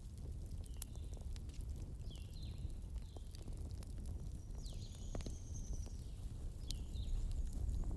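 Wood fire burning, with a steady low rumble and scattered sharp crackles and pops. Short high falling squeaks recur every second or so, and a longer thin high whistle sounds about halfway through.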